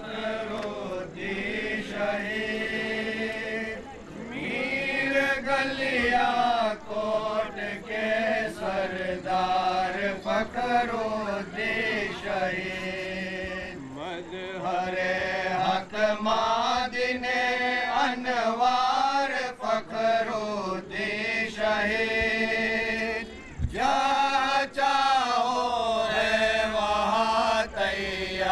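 Devotional chanting of a na'at (naatiya kalaam), a sung poem in praise of the Prophet, in long wavering melodic phrases with short breaks between them.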